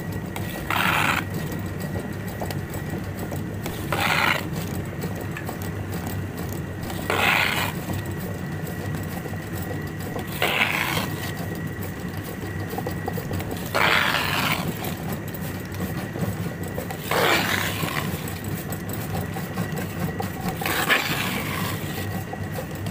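Stone wet grinder running with a steady motor hum, while ground biri paste is scooped out of the turning drum: a short scrape repeats about every three seconds.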